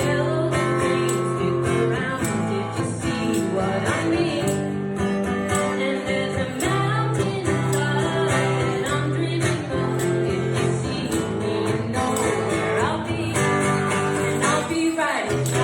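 A small band playing a song live: strummed guitar with a tambourine keeping the beat, and singing.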